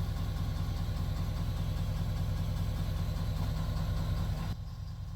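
Truck engine idling steadily, with an even hiss over it that cuts off about four and a half seconds in.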